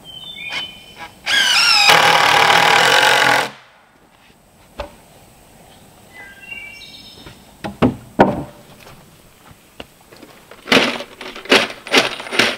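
A cordless drill runs for about two seconds, driving a screw into the timber frame, then stops sharply. A few short high squeaks come before and after it, and wooden knocks and thuds come as timber is handled, several close together near the end.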